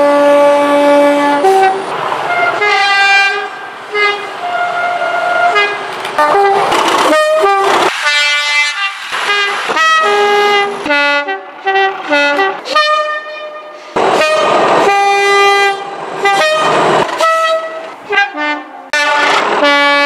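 British Rail Class 37 diesel locomotives sounding their two-tone horns, a run of short and held blasts alternating between a high and a low note, with the rumble of the passing trains between them. Several locomotives' horn sequences follow one another, with abrupt cuts.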